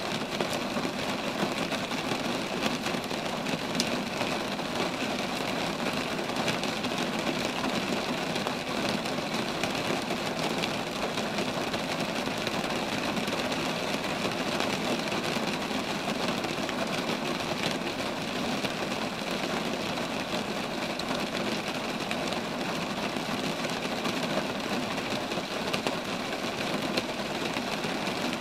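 Steady rain falling on roadside trees: an even, unbroken hiss of many drops with faint scattered ticks.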